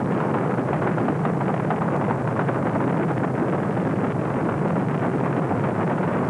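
Rocket engine roar: a steady, unbroken rumble of exhaust noise with no rise, fall or break.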